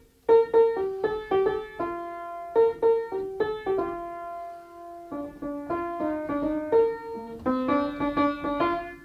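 Bentley upright piano played by hand: a tune of separate, quick notes, with a few held longer, the longest about four seconds in, and a quicker run of notes near the end.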